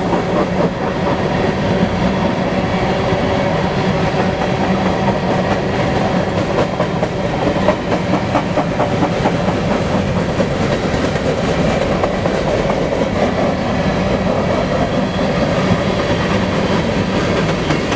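Freight train of grain cars rolling past at close range, the wheels clicking over the rail joints in a steady clickety-clack over a continuous rumble.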